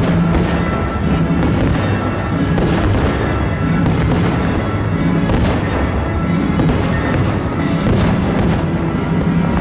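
Fireworks bursting with repeated sharp bangs over loud, continuous music.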